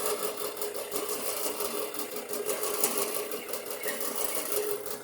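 Drill press running with a steady hum while a step bit drills through 5-inch steel channel iron.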